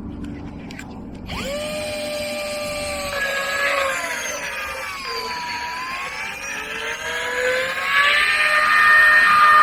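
A small electric motor whining, starting about a second in; its pitch sags in the middle and then climbs again, growing louder near the end.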